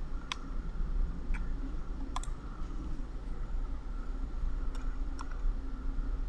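Computer mouse clicking a handful of times, each click short and sharp and spaced irregularly, over a steady low background hum.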